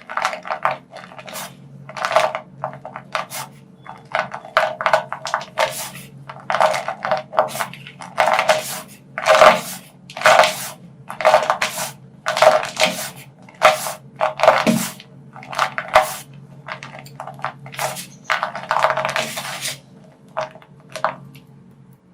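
Soft gym chalk blocks being crushed and crumbled by hand, a series of dry crunches and crackles about once or twice a second with short pauses between.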